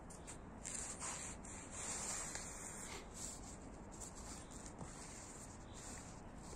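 Sneaker soles scraping and sliding over stone paving as the feet are pushed apart into a side split, with rustling of jeans; the scraping is strongest in the first few seconds, then only light rustles.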